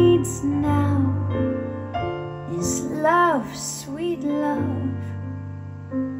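A slow recorded song playing back: a voice holding notes with vibrato over steady low bass notes and soft keyboard accompaniment.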